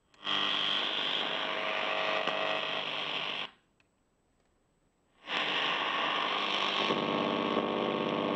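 Grundig Satellit 650 shortwave receiver's speaker giving out static and hum tones while being tuned through the longwave band. It cuts out for about two seconds in between, and in the second stretch a rapid buzz joins the noise.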